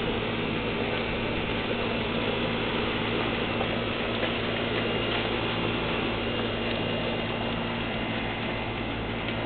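Large raindrops falling in a dense, steady patter, with a steady low hum underneath.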